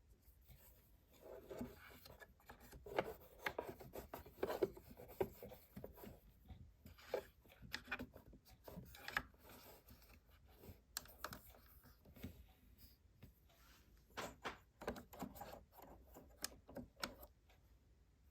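Faint, irregular scratching and rubbing with many small clicks: a cotton swab being worked around the sewing machine's feed dogs to clear out lint.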